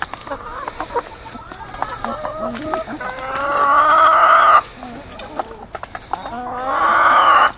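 Backyard chickens clucking, with two long drawn-out calls that grow louder and then cut off suddenly, one about three seconds in and one near the end.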